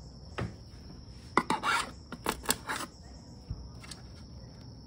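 Hand work on a car seat's metal frame: plastic retaining tabs being pried out and the seat cover's edge pulled back from the frame, giving a series of sharp clicks and short scraping rubs, most of them between about one and a half and three seconds in.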